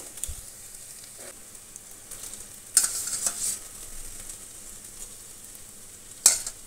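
A masala of onions, nut pastes and yogurt frying quietly in a metal kadai, with a louder burst of sizzling and scraping about three seconds in as boiled chicken pieces go into the pan. A brief sharp knock near the end.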